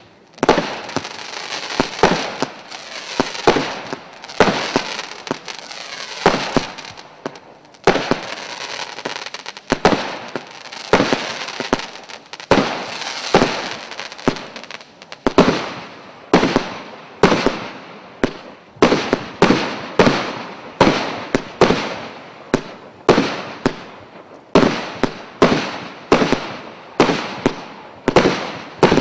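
Kombi-1 fireworks battery (a multi-shot consumer cake) firing shot after shot, each shot a sharp bang trailed by crackling. In the first half the shots come irregularly; from about halfway they settle into a steady run of about two a second.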